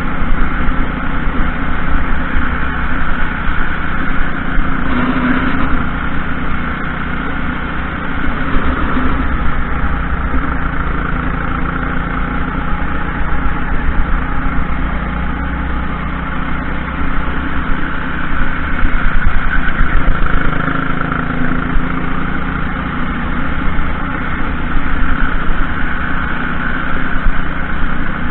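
Junior racing kart's engine running at speed through a lap, heard loud and close from a camera mounted on the kart.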